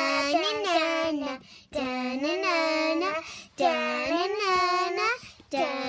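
A girl singing a short melodic phrase over and over, each phrase about a second and a half long with brief breaks between them.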